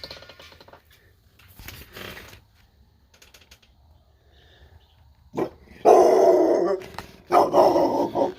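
Guinea fowl alarm-calling: a harsh, rapid chattering, quieter in short bursts at first, then loud in two long bursts in the second half.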